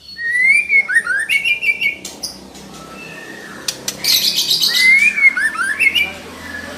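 Female white-rumped shama calling in two bursts, each a run of sliding whistled notes mixed with harsh, buzzy chatter. This is the female's call, used to provoke male shamas into singing.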